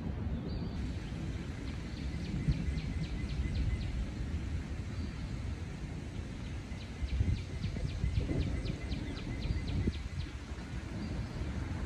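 Northern cardinal singing two phrases of rapid repeated downslurred whistles, about five notes a second, the first about two seconds in and the second about seven seconds in. A steady low rumble of background noise runs under the song.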